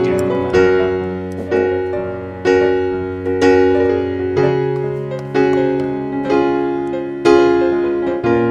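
Background music: a piano playing a slow, even line of notes, about one a second, each fading over held low notes.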